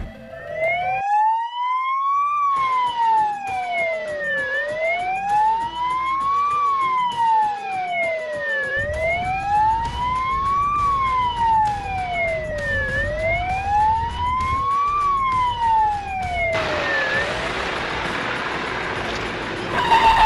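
Emergency-vehicle siren on a slow wail, rising and falling in pitch four times, each sweep taking about four seconds. A steady hiss takes over near the end as the wail dies away.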